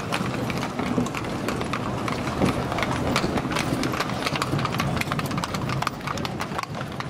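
Hooves of a pair of carriage horses clip-clopping on cobblestones, many sharp strikes close by.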